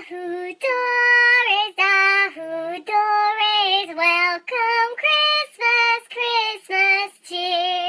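A woman singing a tune unaccompanied in a high, childlike voice, in about a dozen short phrases of held notes that slide up and down.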